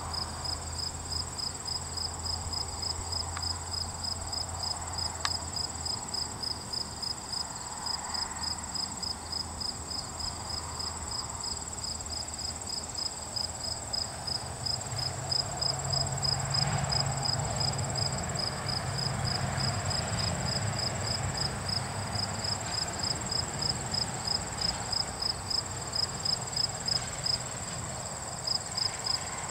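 Insects chirping in an even pulse, two to three chirps a second, over a steady high-pitched trill. A low hum runs underneath and grows stronger midway.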